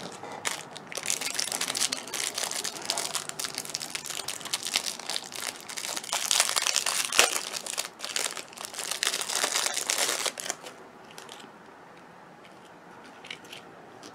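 Thin clear plastic packaging crinkling as it is handled and pulled open: dense crackling and rustling for about ten seconds, then it drops away to a few small crackles near the end.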